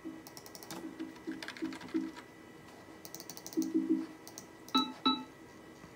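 Mac OS X built-in alert sounds played through the iMac G4's speakers as they are picked in the Sound preferences: clusters of short pitched blips, about four, then three, then two brighter ones, with quick clicking between them.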